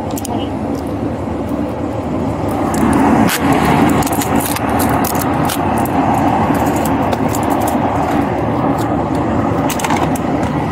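Steady vehicle noise, with scattered sharp clicks and rustles over it.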